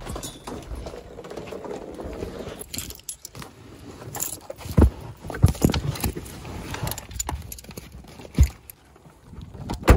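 Irregular clicking and rattling of small hard objects being handled, with a few sharper knocks in the second half.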